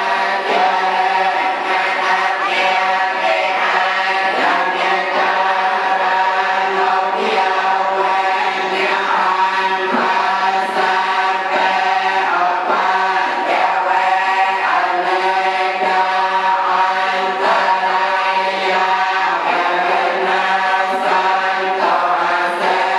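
Buddhist monks chanting a litany together: many voices in unison, held on a few steady pitches with occasional steps between them.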